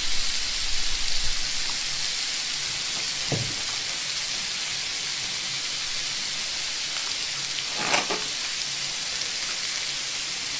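Thin-sliced beef brisket (chadolbaegi) and sour kimchi sizzling steadily on a hot flat grill plate, an even frying hiss. Two brief faint ticks sound partway through.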